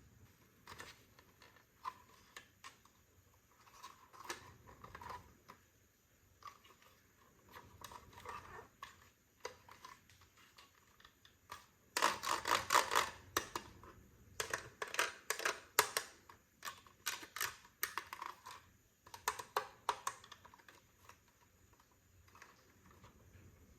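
Small plastic toy pieces and their packaging being handled during an unboxing: scattered light clicks and taps, with busier bursts of plastic clicking and rustling about halfway through and again a few seconds later.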